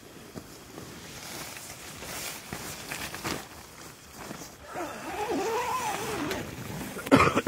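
Nylon tent fabric rustling as the door flap is pulled across and zipped shut, the zip giving a rising then falling note about five seconds in. A short spoken word near the end.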